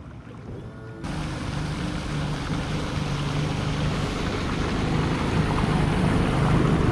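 Bass boat's outboard motor running underway, with wind and water rushing past. The sound starts abruptly about a second in after a quiet low hum, and grows gradually louder.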